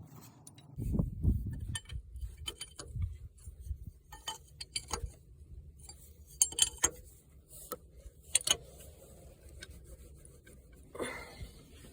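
Scattered light metallic clinks and taps of a wrench on hydraulic fittings during reassembly, with a few dull thumps about a second in.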